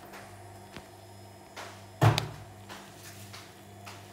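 A single loud knock about two seconds in, with a few faint clicks around it, over a steady low hum.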